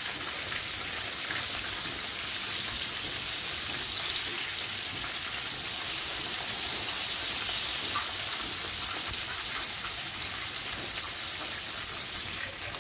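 Breaded chicken fillets frying in hot oil in a frying pan: a steady, even sizzle with faint crackles, which drops off suddenly near the end.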